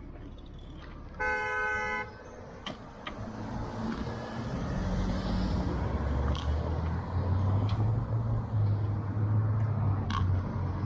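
A vehicle horn toots once, briefly, about a second in, then the low engine rumble of a passing vehicle builds and grows louder.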